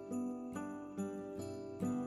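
Background music: a bright melody of ringing notes, a little over two a second.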